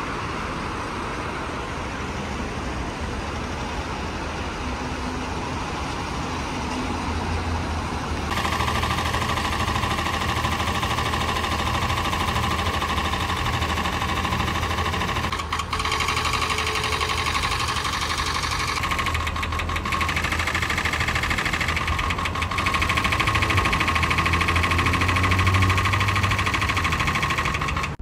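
Road traffic: engines and tyre noise of passing cars and trucks, a steady low rumble. About 8 seconds in the sound changes abruptly and a steady higher machine hum joins the traffic.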